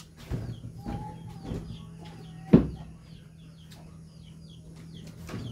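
A sharp wooden knock about two and a half seconds in, with creaks before it, as a kitchen door is opened. Short, high bird chirps repeat throughout, over a steady low hum.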